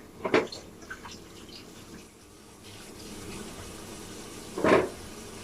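Kitchen tap running into a sink for washing up, the flow louder from about halfway through. A short knock comes near the start and a louder clatter near the end, as dishes are handled.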